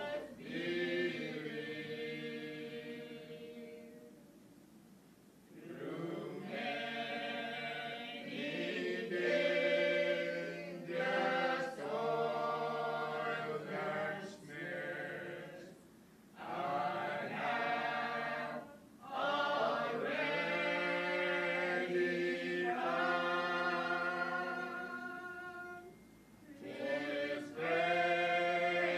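A choir singing in long held phrases, with brief breaks between them.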